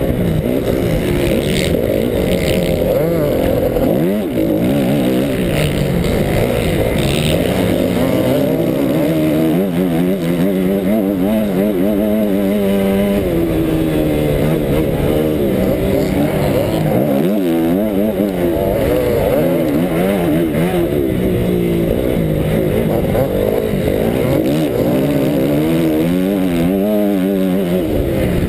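Motocross bike engine heard from the rider's helmet, revving up and dropping back again and again as the rider accelerates and shifts through the gears, with wind noise on the microphone.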